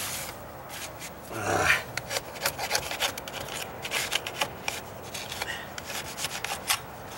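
Hand paint scraper dragged over the painted edge of a wooden stair riser in short, irregular scraping strokes, working off loose paint, with one heavier scrape about a second and a half in.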